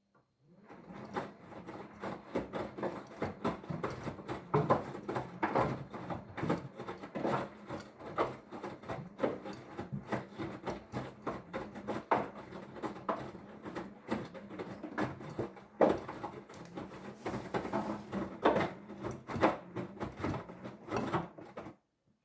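Hoover All In One washer-dryer at the start of a programme, its drum turning with a steady motor hum and irregular knocks and rubs about once or twice a second. The sound starts just after the beginning and stops suddenly near the end.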